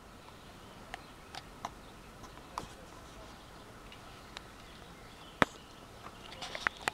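Airsoft guns firing single shots: scattered sharp pops and clicks, the loudest about five and a half seconds in, with a quick run of shots near the end.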